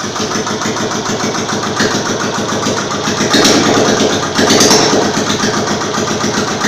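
Freshly rebuilt Royal Enfield Classic UCE single-cylinder engine running just after being started, with no silencer fitted, so the exhaust is open and loud. It gets louder for a couple of seconds in the middle.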